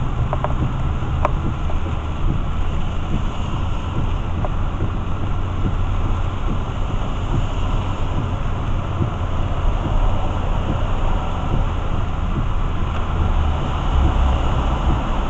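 Steady low rumble and hiss of a car's tyres and engine on a rain-soaked freeway, heard from inside the cabin, with rain on the car.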